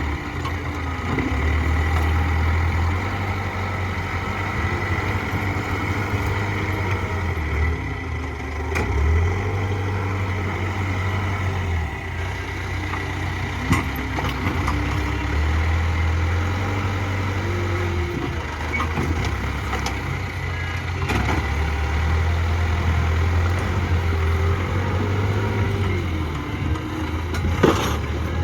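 Backhoe loader's diesel engine running under changing load, its drone rising and falling every few seconds as the machine works. Two sharp knocks stand out, one about halfway through and one near the end.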